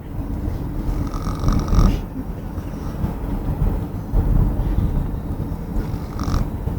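A man snoring in his sleep: two long, low snores about three seconds apart.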